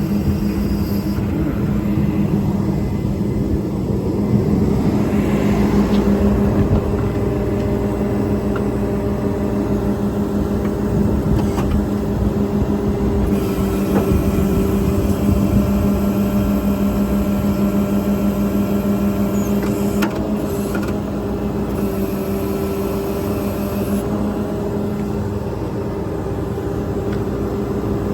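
The service truck's 8.9-litre Cummins diesel running steadily, with a constant droning hum.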